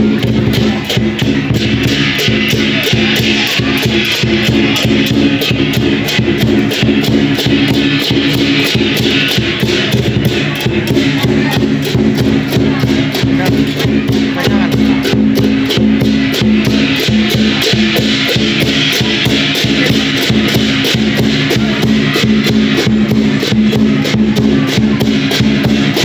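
Lion dance percussion: a drum with clashing cymbals, beating fast and without a break.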